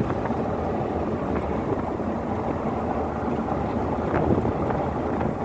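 ATV engine running steadily while riding, with wind buffeting the microphone.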